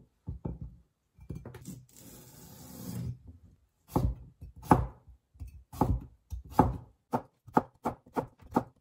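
Kitchen knife chopping cucumber on a plastic cutting board. A few strikes come first, then a longer drawn cut about a second in that grows louder, as the cucumber is sliced lengthwise. A steady run of chops follows and quickens near the end.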